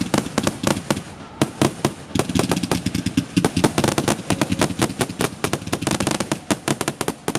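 Fireworks going off: a rapid run of sharp bangs and cracks, several a second, thinning out briefly about a second in.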